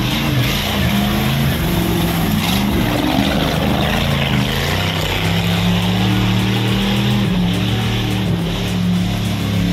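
Off-road jeep's engine revving under load as it ploughs through a muddy, water-filled rut, its pitch rising and falling, with mud and water splashing.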